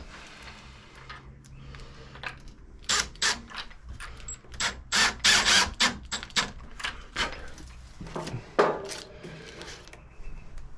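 Metal deadbolt lock parts being fitted into the door by hand: a run of sharp metallic clicks and rattles that starts a few seconds in and dies away near the end.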